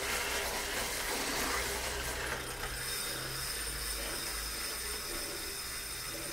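A road bike on an indoor smart trainer, its drivetrain and trainer running with a steady mechanical whirr; faint steady high tones join from about two seconds in.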